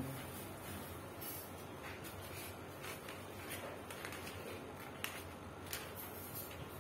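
Faint rustling and crinkling of plastic packaging and a folded paper sheet being handled and opened, with a few short, sharp crackles spread through it.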